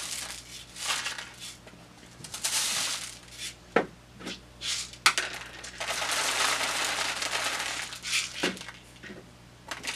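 Dry rice and popcorn kernels poured from a cup into a cardboard paper towel tube with a coiled aluminium foil insert, the grains pattering and hissing down the tube in several pours, the longest about six seconds in. A few single sharp ticks of grains come in between.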